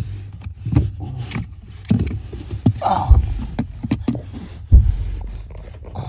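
Irregular clicks and knocks of hands working on something, with two heavy thumps about three and about five seconds in, over a steady low hum.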